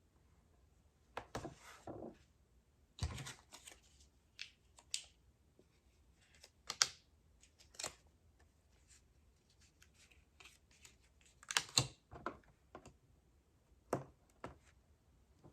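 Paper and card album pieces being handled and fitted together: scattered light taps, clicks and brief rustles with quiet gaps between them.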